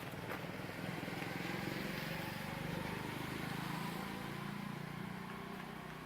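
A motor vehicle's engine running steadily, with a faint slap just after the start.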